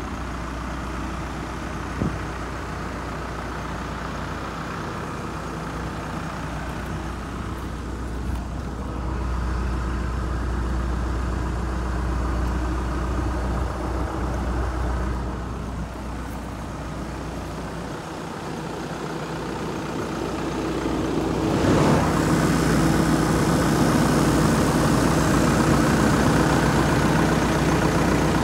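Mitsubishi Rosa minibus's 4M51 four-cylinder diesel engine idling steadily, growing louder about three-quarters of the way through.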